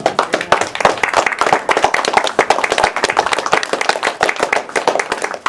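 Audience applauding with dense, many-handed clapping that dies down at the very end.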